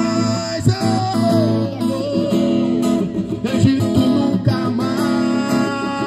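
Acoustic guitar strummed in steady chords, with a man singing a worship song into a hand microphone over it.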